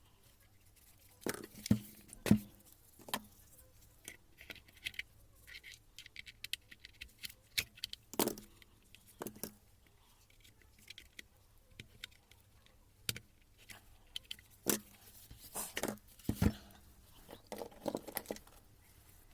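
Scattered clicks, light knocks and scrapes of tools and small parts being handled, with the strongest knocks about two seconds in, around eight seconds in and again near the end.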